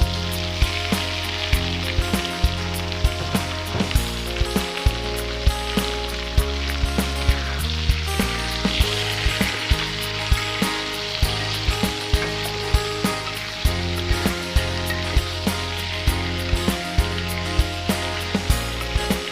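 A stir-fry sizzling steadily in hot oil in a pan, under background music with a steady beat.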